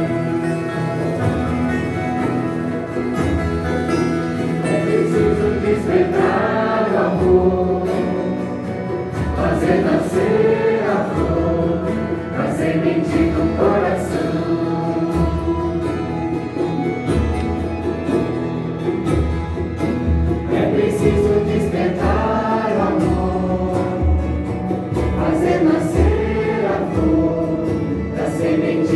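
Santo Daime hymn sung by a group of voices together, with guitar accompaniment and a steady beat.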